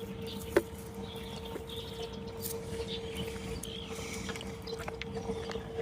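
Quiet riverbank ambience: a steady faint hum, a single sharp click about half a second in, and faint bird chirps.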